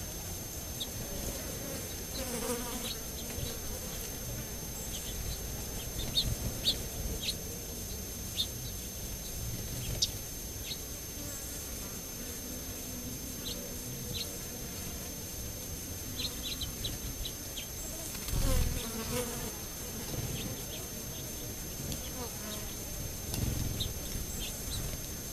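Flying insects buzzing past close to the ground several times, loudest about three quarters of the way through, with short high bird chirps here and there.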